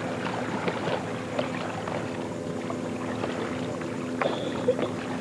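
Motorboat engine droning steadily on the lake, with scattered light clicks and a brief high tone about four seconds in.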